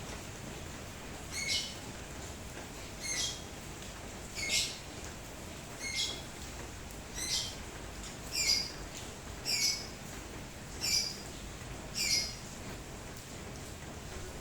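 A bird repeating a short, high chirp about every second and a half, nine times in a row, over the steady hiss of rain.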